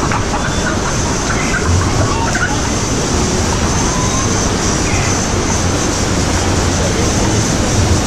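Steady rush of churning white water in a river-rapids ride channel, with faint voices of people nearby.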